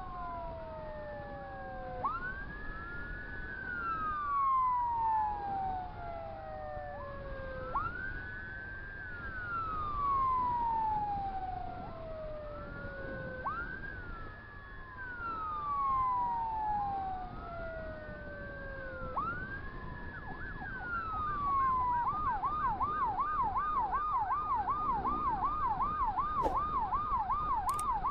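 Two electronic emergency sirens wailing together, each cycle a quick rise in pitch, a short hold, then a long slow fall, repeating about every six seconds. About 22 seconds in, the main siren switches to a fast warble of roughly three pitch swings a second.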